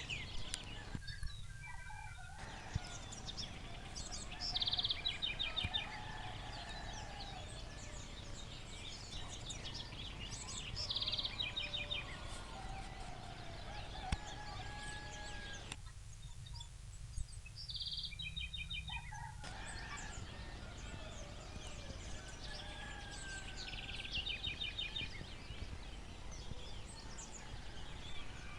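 Rural dawn chorus: a songbird repeats a short, rapid trill about every six seconds, among other bird calls and distant domestic fowl. The birdsong drops out twice, for about a second and a half and then about three and a half seconds.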